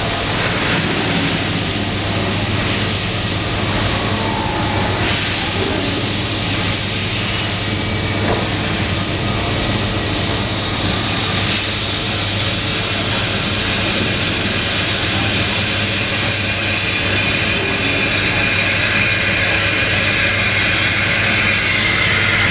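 Thaco EZ50S wire-cutting machine running steadily: a constant low hum under an even hiss.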